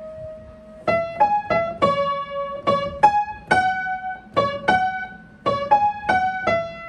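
A piano played slowly: a simple melody picked out one note at a time, opening on a note held for about a second, then about two to three notes a second.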